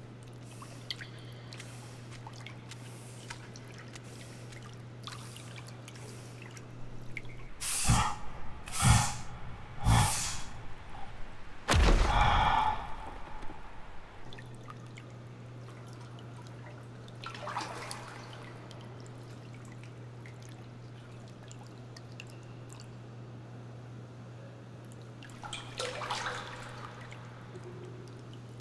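Animation sound design: faint water drips over a steady low hum, broken midway by three heavy thuds about a second apart and then a longer, louder crash. A faint watery sound follows near the end.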